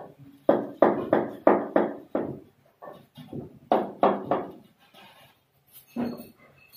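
Hard knocks on a tile panel being fitted at a kitchen counter, about three a second in two runs of roughly six, with one more near the end. Each knock rings briefly.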